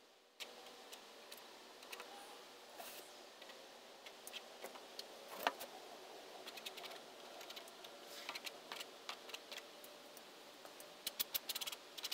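Quiet scattered clicks and scrapes of a palette knife working thick paint on a canvas board, with a quick run of sharp clicks near the end.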